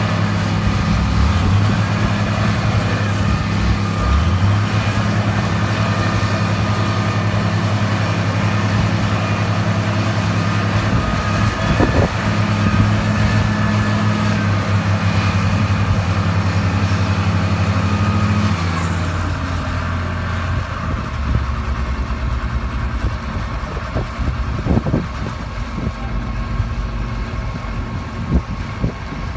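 Diesel engines of two wheel loaders running hard under load with a high whine over them, then easing off to a lower, quieter run about two-thirds of the way through. A few sharp knocks stand out about midway and near the end.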